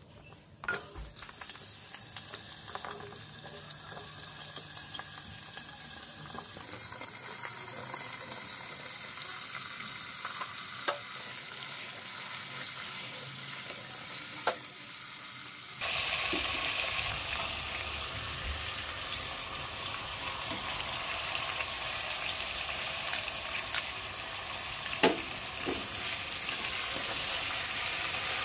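Cubes of potato and pointed gourd frying in hot oil in a pressure cooker: a steady sizzle as they are stirred with a spatula, with a few sharp clicks of the spatula against the pot. The sizzle jumps louder about halfway through.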